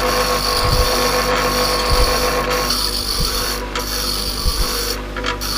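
Bench grinder running with a diamond cutter held against its out-of-round stone wheel to true it: a steady motor hum under a rasping grind that changes in tone about three seconds in. Early in the dressing the wheel is still uneven and vibrating.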